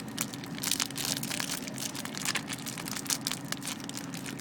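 Plastic crinkling and crackling in irregular bursts, over a steady low hum.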